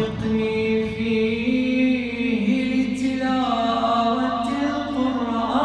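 A man chanting an Arabic supplication (du'a) solo and unaccompanied, in long held notes that slide slowly up and down the melody.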